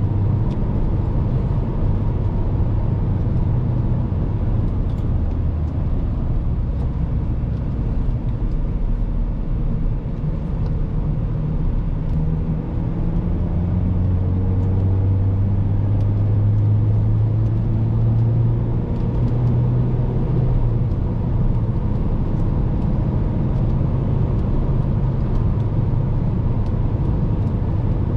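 In-cabin sound of a 2012 Mazda 5's 2.0-litre petrol four-cylinder engine running under steady road and tyre noise while driving. Midway the engine note eases, then rises again as the car pulls away in gear.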